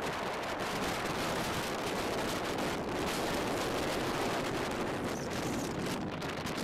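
Gale-force wind buffeting the camera's microphone on an exposed hilltop: a loud, continuous rushing noise.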